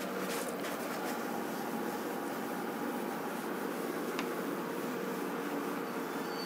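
Steady fan-like room hum with faint rubbing as a duster wipes a whiteboard, and one small click about four seconds in.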